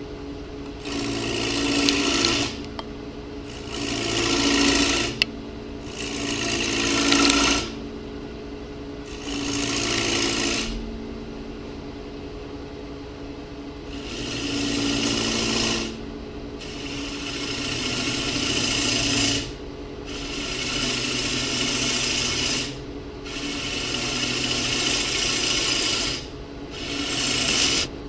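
Bowl gouge cutting a spinning walnut bowl blank on a Powermatic wood lathe. There are about nine hissing cutting passes of one to three seconds each, with short breaks between them, over the steady hum of the running lathe.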